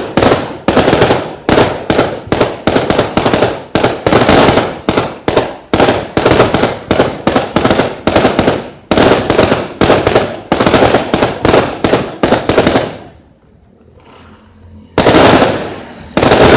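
A rapid, unbroken string of firework bangs, several a second, breaking off about thirteen seconds in, followed by two more loud bangs near the end.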